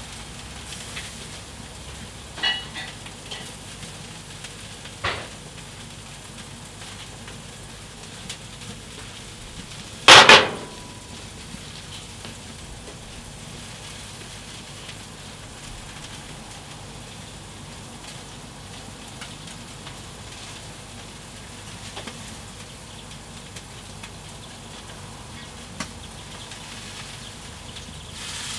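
Food sizzling steadily on a gas grill with the lid closed, with a few light knocks and, about ten seconds in, a sharp clatter as a plate is set down on the grill's side shelf.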